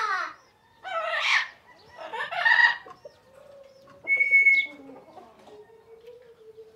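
Parrot squawking and calling: four loud calls in the first five seconds, the first falling in pitch and the fourth a short clear whistle, then only a faint thin tone.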